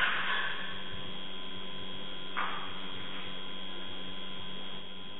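Steady electrical hum with a low hiss on a surveillance camera's audio, and one brief soft rush of noise about two and a half seconds in.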